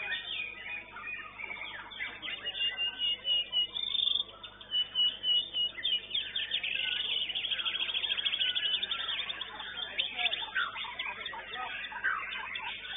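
White-rumped shama (murai batu) singing: quick varied phrases of high notes and runs of repeated notes, with a fast rattling run about halfway through. People are talking in the background.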